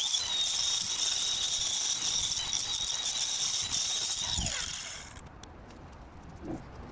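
Handheld electric power tool running at a steady high whine with a hiss, switched off about four and a half seconds in, its pitch falling quickly as the motor spins down.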